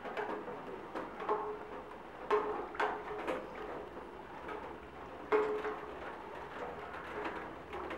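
Honda Black Widow 750's V-twin idling with a loping beat through Cobra aftermarket exhaust pipes, with a few sharper, louder pulses about one, two to three and five seconds in.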